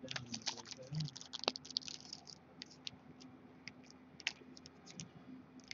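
Shiny foil trading-card pack wrapper crinkling and tearing as it is pulled open by hand: dense crackles for the first couple of seconds, then scattered crinkles.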